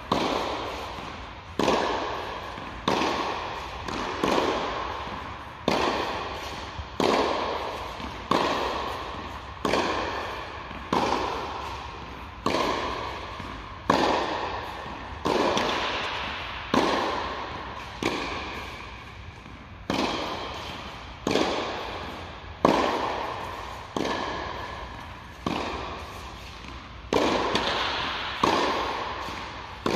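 Tennis ball struck by rackets in a steady baseline rally: a sharp pop about every one and a half seconds, each ringing on in the echo of the indoor court hall.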